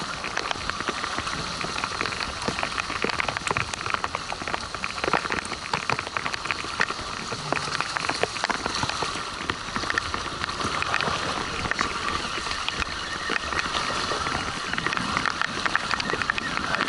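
Rain pattering close to the microphone: a dense, steady crackle of drops hitting rain gear and the camera, over a constant hiss.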